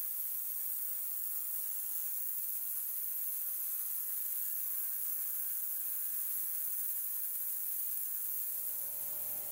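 Ultrasonic cleaner running with an iron block in its bath of heated cleaning solution: a steady high-pitched hiss of cavitation with a faint low hum underneath.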